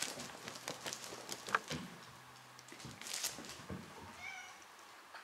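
Cats' paws tapping and thumping on a wooden floor as they jump and scamper, a flurry of light knocks over the first two seconds, then one short meow about four seconds in.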